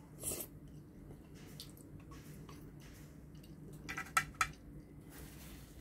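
Eating sounds: a short slurp of spaghetti noodles about a quarter second in, then quiet chewing. A few sharp clicks of chopsticks against a ceramic plate come around four seconds in.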